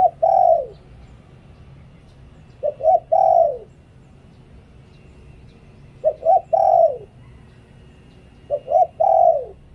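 Spotted dove cooing in the phrase Thai keepers call 'liw tan': four phrases about three seconds apart, each two short notes and then a longer falling coo.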